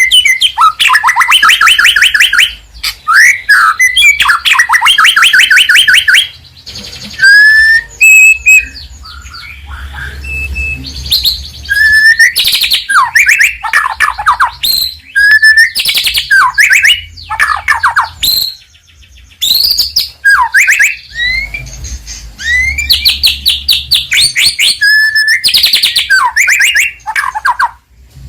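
White-rumped shama (murai batu) singing loudly and continuously. Its song runs in varied phrases: fast chattering trills alternate with clear whistles and notes that slide down, with short breaks between phrases.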